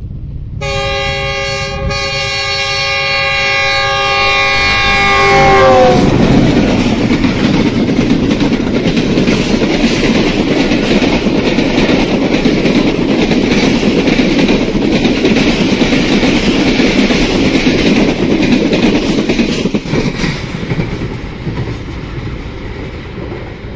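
Pakistan Railways GE U20 diesel-electric locomotive hauling the Tezgam Express through at full speed, sounding one long multi-note horn blast. The horn's pitch drops about six seconds in as the locomotive passes. The passenger coaches then rush by with steady wheel clatter, fading near the end.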